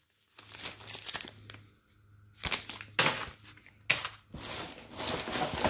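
Small plastic zip-lock bags of sewing machine parts crinkling as they are handled and set down on a table, with a few sharp taps.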